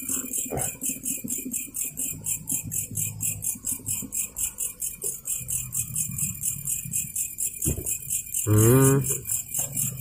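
Night insects chirping in a fast, steady, high-pitched rhythm of about five chirps a second. A brief voice sounds near the end.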